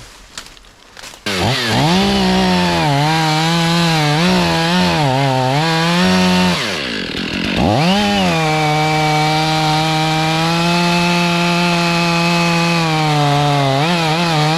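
Two-stroke chainsaw starting suddenly about a second in and running at high revs, its engine pitch rising and falling, dipping briefly near the middle, then holding steady before easing off near the end.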